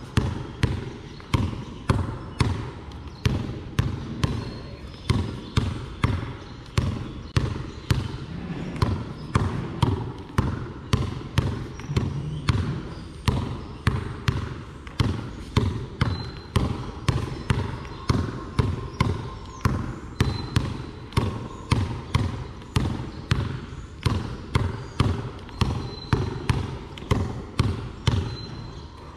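A basketball dribbled on a concrete court: steady, evenly spaced bounces at about two a second.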